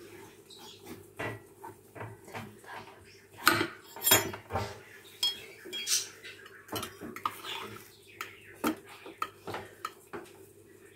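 Metal knife and cake server scraping and clinking against a glass serving plate as a slice is cut from a frozen parfait and lifted: irregular scrapes and taps, loudest about three and a half to four and a half seconds in.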